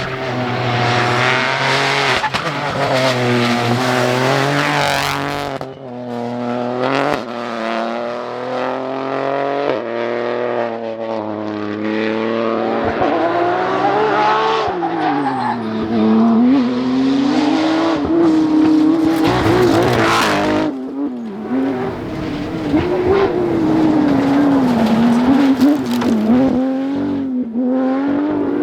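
Rally cars at full attack on a special stage, engines revving hard and rising and falling in pitch through gear changes and corners, with tyre skidding. The sound changes abruptly a couple of times as different passes follow one another.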